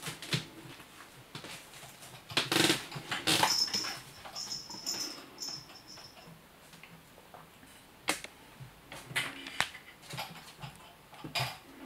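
A kitten at play: irregular knocks, taps and scuffles of its paws and claws on a wooden tabletop and a hard plastic toy, with the loudest clatter a few seconds in and more scattered knocks later.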